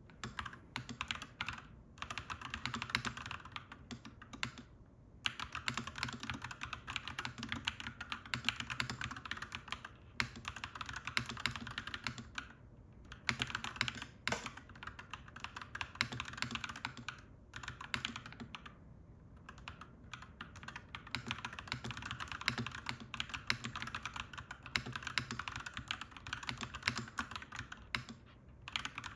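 Clacky mechanical keyboard typing in fast continuous runs, broken every few seconds by brief pauses, over a steady low background hum.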